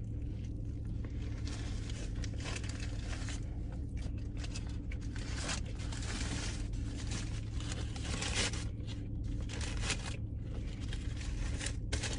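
Paper sandwich wrapper crinkling and rustling as it is handled, in irregular bursts over a steady low hum.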